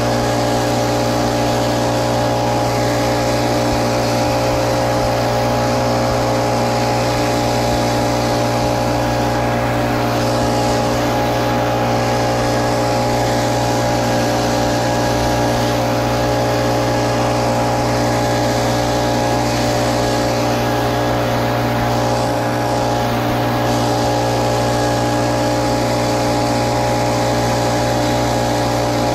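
Little Wonder Optimax walk-behind wheeled blower's gas engine running steadily at one speed, with the even rush of air from its fan.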